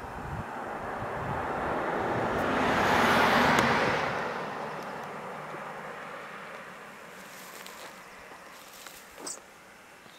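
A vehicle driving past: a rush of noise swells to its loudest about three seconds in, then fades away slowly.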